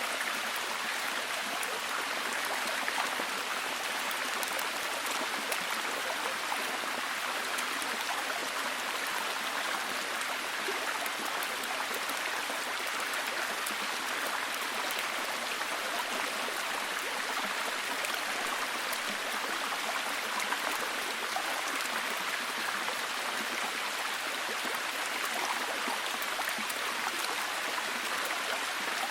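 Steady heavy rain, a dense even hiss of falling drops with fine patter throughout.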